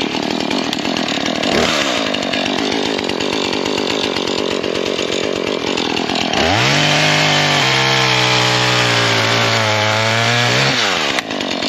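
Husqvarna 440's two-stroke chainsaw engine running at low speed, then throttled up about six seconds in to a high, steady whine that sags slightly as it works. It drops back to a low idle near the end.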